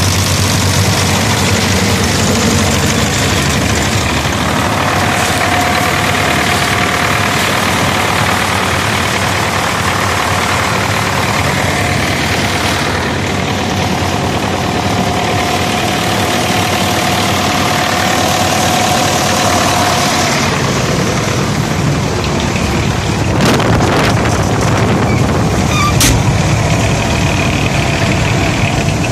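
Belarus MTZ-80 tractor's four-cylinder diesel engine running steadily under load while driving a DRK 165 flail mulcher through dry corn stalks. There is a faint steady whine partway through and a couple of sharp knocks near the end.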